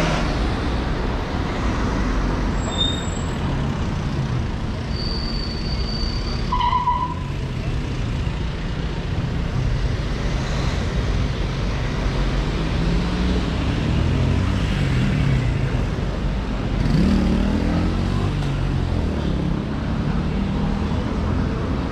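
City street traffic: cars passing in a steady rumble, with a few brief high squeaks about five to seven seconds in.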